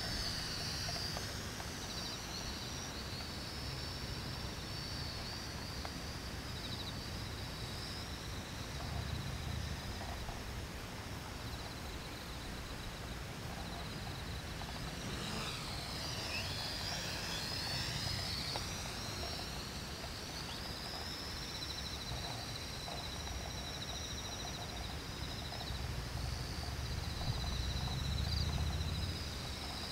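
Small electric radio-controlled model airplane's motor and propeller whining high as it flies, the pitch sliding down and back up about halfway through. Low wind rumble on the microphone, stronger near the end.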